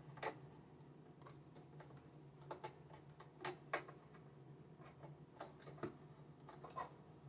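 Faint, scattered clicks and light taps of small plastic and metal embroidery-machine parts being handled and fitted by hand, about eight in all, over a low steady hum.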